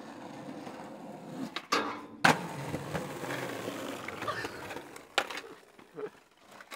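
Skateboard wheels rolling on concrete, with a couple of light clicks and then one loud sharp clack of the board a little over two seconds in. The rolling carries on and dies away about five seconds in, with one more knock as it stops.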